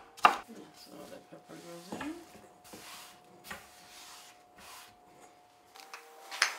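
Kitchen knife striking a wooden chopping board near the start and again near the end, with soft scraping and handling sounds of chopped peppers on the board in between, over a faint steady hum.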